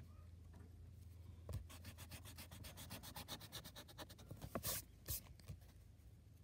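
An eraser rubbed rapidly back and forth on paper, about ten strokes a second, starting about a second and a half in and rubbing out part of a pencil line. Then come two louder swipes across the paper.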